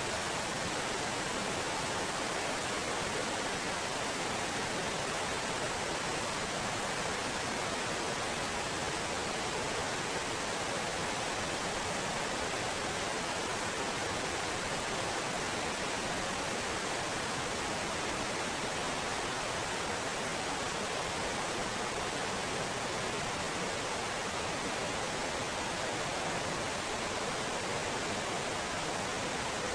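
Small waterfall cascading over mossy boulders into a rocky pool: a steady, unbroken rush of falling water.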